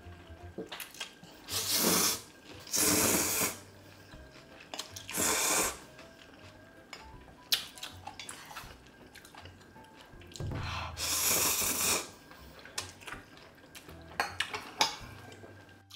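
Close-miked slurping of spicy stir-fried instant noodles: four loud slurps, the last and longest about ten seconds in, with quieter chewing and small clicks between.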